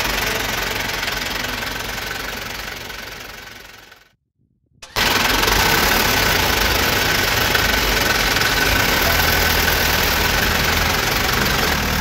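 A motor vehicle engine running steadily. It fades away over the first four seconds, cuts out for about a second, then comes back louder and runs on steadily.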